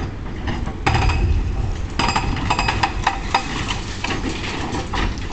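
Demolition machinery rapidly hammering at a concrete building, starting about a second in with a few short breaks, over a low rumble.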